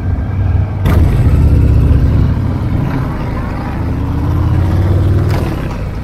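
Straight-piped Harley-Davidson Fat Boy V-twin running with a deep rumble while riding, rising steadily in pitch from about two and a half seconds in as it accelerates. A short sharp knock comes just under a second in.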